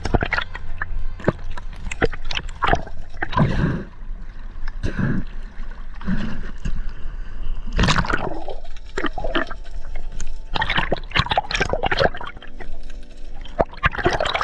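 Background music over the sound of water sloshing and gurgling around a camera held underwater, with irregular clicks.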